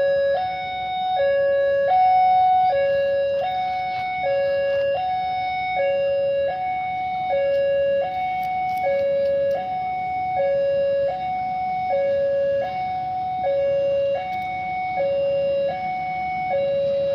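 Electronic two-tone warning alarm that alternates evenly between a higher and a lower note, switching about every three-quarters of a second.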